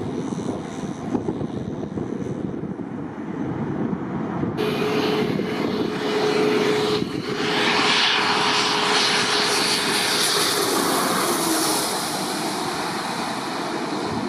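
Jet airliner engines roaring as a plane passes close by, with wind noise on the microphone; the engine roar comes in abruptly about four and a half seconds in and carries a steady whine that drops slightly in pitch near the end.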